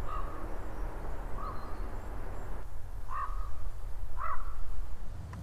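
A crow cawing four times, short harsh calls about a second or so apart, over a steady low rumble of outdoor background noise.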